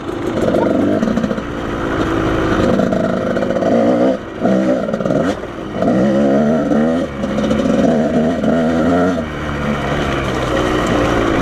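Off-road motorcycle engine running under changing throttle while riding, revving up and dropping back several times with short lifts off the throttle.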